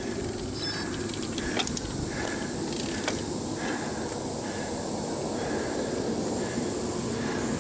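Bicycle ridden uphill, heard from the bike: steady road and wind noise with a few light clicks and rattles, two of them plain, the first about a second and a half in and the second about three seconds in.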